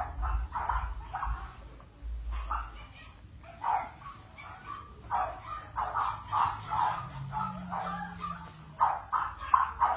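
Young puppies yipping and whimpering in many short, high calls, coming faster in the second half.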